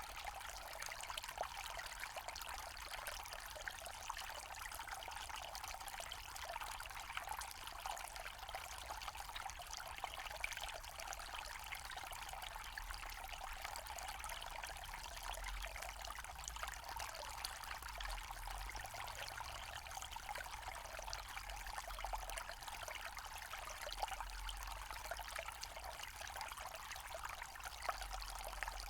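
Small forest stream running over stones, a steady trickling and splashing with no let-up.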